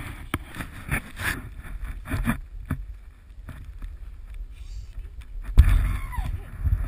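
Snowboard riding through deep powder snow, with wind on the microphone and knocks on the handheld camera pole. About five and a half seconds in there is a heavy thump as the rider goes down into the powder, followed by a short cry.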